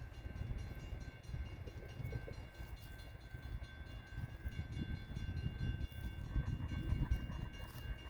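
Approaching freight train, led by CSX GE ES44 diesel locomotives: a low, uneven rumble that builds slightly toward the end, with a faint steady high tone held throughout.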